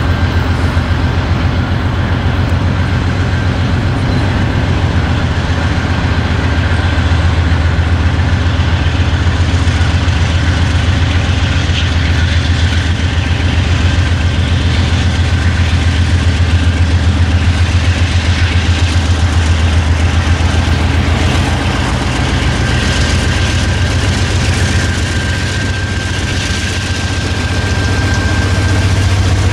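Union Pacific diesel freight locomotives, led by a GE AC4400CW, running toward the listener with their engines working: a loud, steady low rumble that swells near the end as the lead unit draws close.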